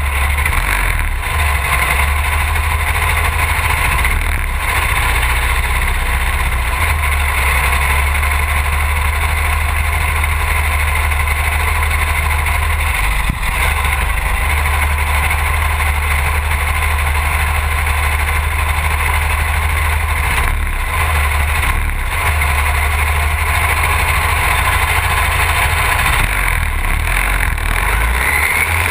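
Racing lawn mower's engine idling steadily, heard from a camera mounted on its hood, with a heavy, constant low rumble.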